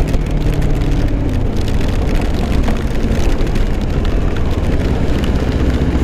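Kawasaki Ninja 250R's parallel-twin engine running under steady wind and road noise while riding in the rain, with the hiss of tyres on a wet road and raindrops ticking on the helmet camera. A low engine tone eases down over the first couple of seconds.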